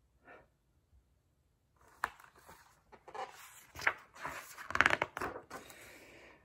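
Pages of a hardcover picture book being handled and turned: paper rustling and flapping, with a sharp tap about two seconds in.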